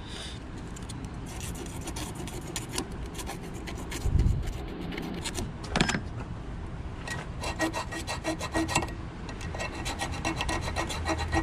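Razor blade scraping paint off a battery ground cable's eyelet connection down to bare metal for a good ground, a rapid run of rasping strokes that gets busier in the second half. A dull knock about four seconds in.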